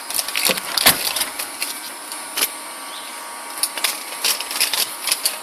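Dry leaves crackling and rustling in irregular sharp crunches over a light hiss.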